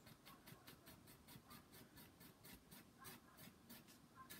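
Pencil scratching on paper in quick, even hatching strokes, about five a second, shading in cross-hatching. Faint.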